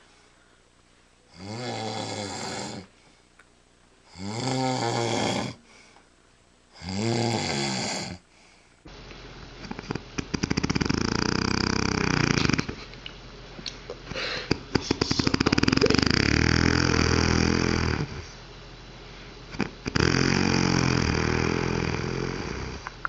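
A person snoring. First come three even snores about three seconds apart. Then, after a change of recording, come louder snores with a fast fluttering rattle, in three long breaths.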